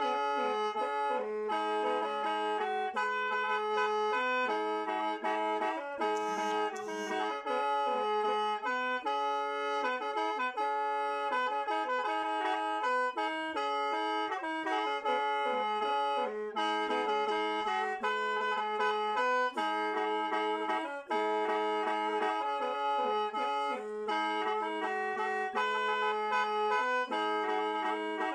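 Lao khaen, a bamboo free-reed mouth organ, played solo: several pipes sound together, a held low drone under a quick-moving melody.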